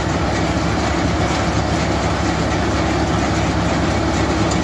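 Luzhong LZ504B 50 hp diesel tractor running steadily while driving a PTO-powered green mini round baler, a continuous, even mechanical running noise from the engine and baler together.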